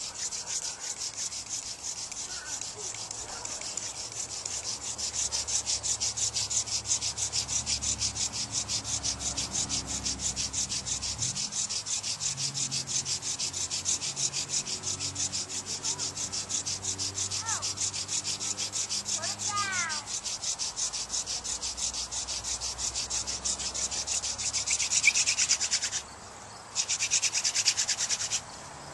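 Hand-drill friction fire: a wooden spindle spun back and forth between the palms, grinding into a wooden hearth board with a fast, steady rhythmic rasp. It grows louder about five seconds in and again near the end, and breaks off briefly twice near the end.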